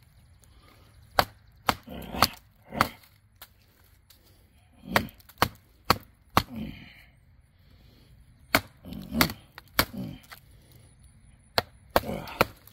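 Survive Knives GSO 4.5 bushcraft knife chopping into the grain of a split green-wood stump: about fifteen sharp chops in irregular clusters, several followed by the wood cracking and splintering.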